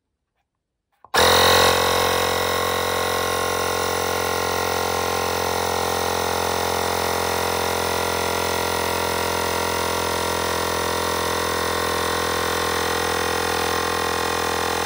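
Xiaomi portable electric air compressor switching on about a second in and running with a steady hum, a little louder in its first moment. It is pumping up a scooter tyre, with its pressure reading climbing.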